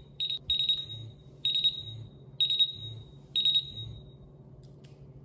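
SENKO MGT portable multi-gas detector sounding its alarm: high beeps with a low buzz under each, about once a second, stopping about four seconds in. The alarm is set off by leftover calibration gas holding the readings above the alarm level as they fall back toward ambient.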